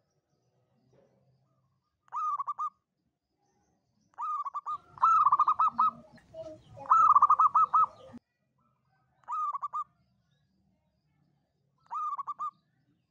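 Zebra dove (perkutut) cooing: short phrases of quick, rolling coo notes repeated every couple of seconds, six in all. The two longest and loudest phrases come in the middle.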